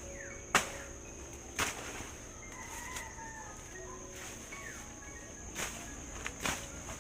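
Four sharp chopping strikes of a hand tool clearing ground: two about a second apart near the start, two more near the end. Under them run a steady high insect drone and a few short bird chirps.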